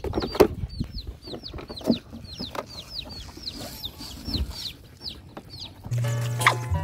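A chick peeping over and over, short high falling peeps about three or four a second, over knocks and clatter of puppies eating from a plastic bucket. Music comes in near the end.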